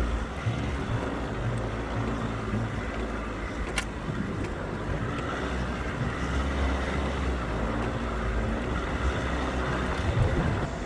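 Overland vehicle's engine running steadily, with a single sharp click about four seconds in.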